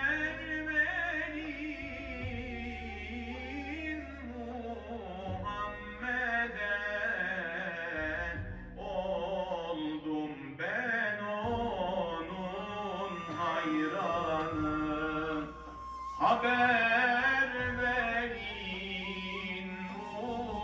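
A man sings a Turkish hymn praising the Prophet Muhammad solo into a microphone, in slow ornamented phrases with long held notes.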